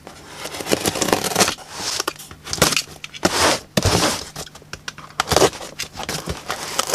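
Utility knife slitting packing tape on a cardboard box, in a series of short scraping, tearing strokes, with the cardboard box being knocked and turned over about halfway through.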